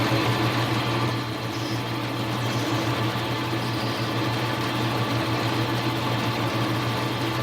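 Lathe running steadily with a low motor hum while a parting tool cuts off a small Delrin workpiece.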